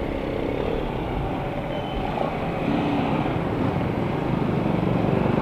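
Honda Click 125i scooter's single-cylinder engine running at low speed in traffic, with road noise; steady, growing slightly louder toward the end.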